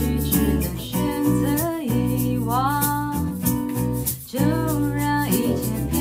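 A live band plays a slow song: a woman sings over a strummed acoustic guitar and electric bass, with light shaker-like percussion keeping the beat.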